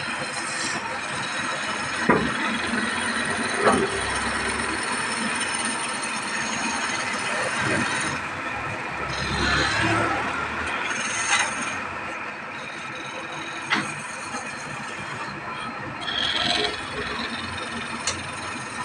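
Wood lathe running while a hand-held chisel cuts a spinning wooden spindle: a steady mechanical whirr with rough scraping of the tool on the wood, broken by a few sharp knocks.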